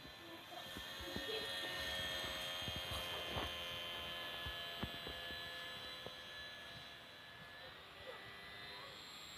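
Steady whine of the Sport Cub S micro RC plane's small electric motor and propeller, with a few faint clicks. Its pitch steps up slightly near the end.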